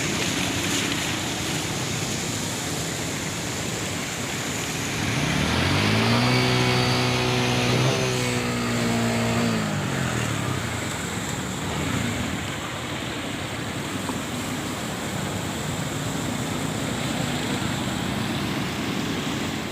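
Steady rushing noise of rain and a wet street. About five seconds in, a motor vehicle's engine hum comes up, rising in pitch, then passes by, its pitch dropping and fading out near ten seconds.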